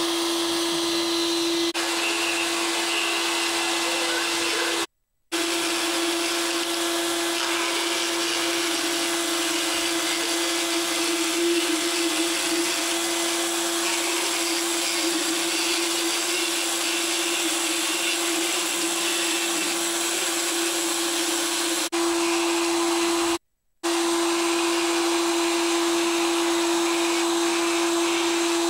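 Motorized equine dental float running steadily with a constant whine and a grinding hiss as it files down a horse's teeth. The sound cuts out briefly twice.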